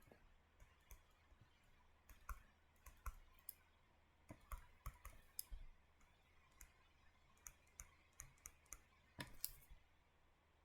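Near silence broken by faint, irregular clicks and taps of a stylus on a tablet screen during handwriting, a little denser about nine seconds in.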